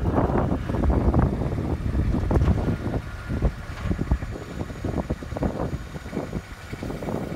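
Kubota DC-1A combine harvester's three-cylinder diesel engine running steadily, with wind buffeting the microphone in irregular gusts.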